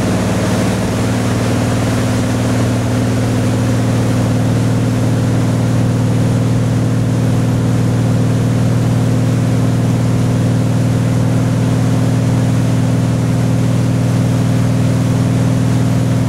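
Tow boat's engine running steadily at a constant pitch, with the rush of water from the boat's wake.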